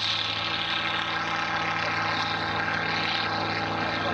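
Helio Courier light aircraft's piston engine and propeller at takeoff power as it climbs out, a steady drone with a constant engine tone.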